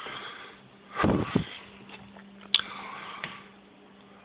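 Handling noise of a handheld phone camera as its holder walks: two soft thumps about a second in, then two sharp clicks, over a faint steady hum.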